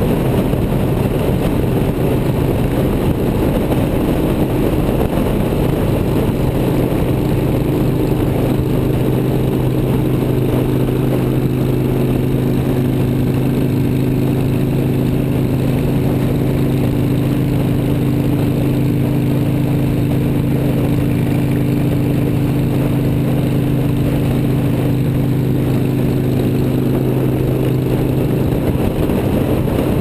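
Motorcycle engine running steadily at highway cruising speed, a constant low drone with wind and road noise rushing over the microphone.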